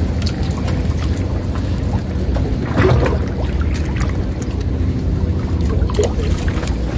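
A steady low rumble, with a few light clicks and a knock about three seconds in as a fishing rod and line are handled.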